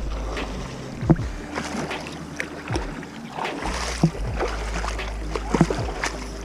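Legs wading through a shallow river, the water splashing with each stride about every second or so, over a low steady rumble.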